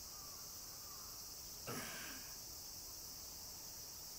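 Faint, steady, high-pitched insect chirring, with one brief soft sound a little under two seconds in.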